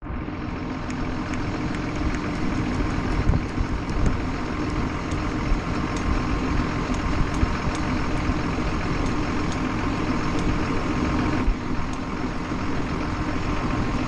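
John Deere tractor's diesel engine idling steadily, with faint irregular ticks over the drone.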